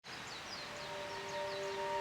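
Small birds chirping, a quick series of short falling notes, with a chord of steady held tones fading in under them about a second in.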